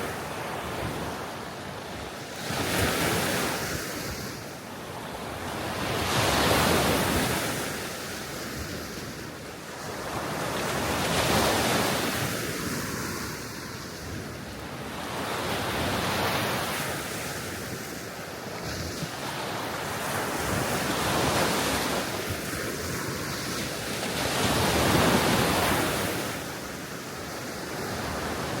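Small sea waves washing onto a Baltic Sea shore, each surge rising and falling away about every four to five seconds, over a steady wash of wind.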